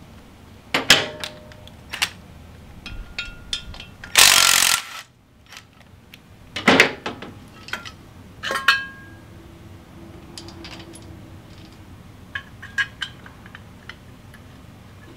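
Tools and metal parts clinking and clanking during the teardown of a Harley-Davidson Heritage Softail, in irregular sharp knocks. A short, loud power-tool burst, under a second long, comes about four seconds in, and a flurry of small clicks comes near the end.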